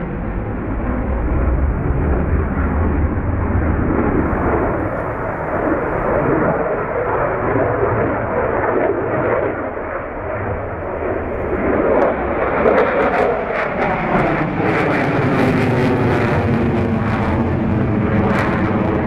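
Sukhoi Su-30 fighter jet's twin engines roaring continuously during a flying display. Past the middle the sound swells and takes on a sweeping, phasing tone with crackle as the jet passes.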